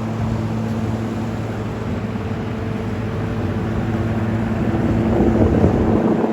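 An engine running steadily at an even speed, growing louder about five seconds in.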